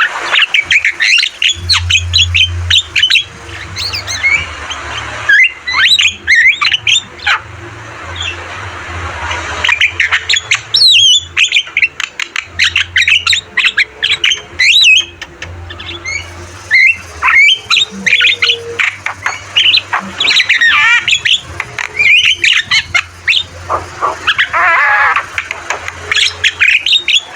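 Javan myna calling: a rapid, varied string of harsh squawks, whistled notes and chatter in bursts, broken by short pauses.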